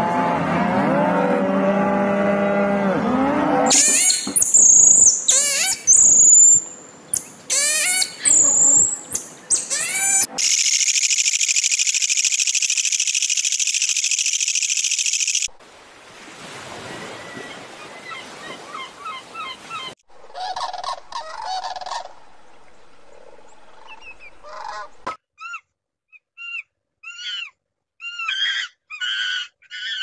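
Cattle lowing. Then a run of loud high calls sweeping up and down, and a steady high-pitched buzz lasting about five seconds. After that comes surf washing on a beach, and near the end a string of short high chirps from a golden lion tamarin.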